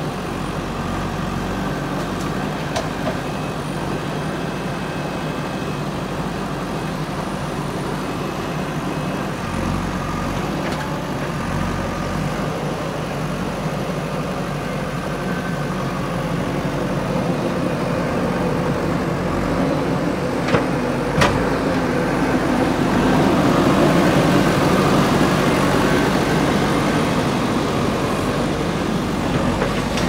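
JCB backhoe loader's diesel engine running steadily, growing louder about three quarters of the way through as the machine works harder. Two sharp metallic knocks come just before the engine rises.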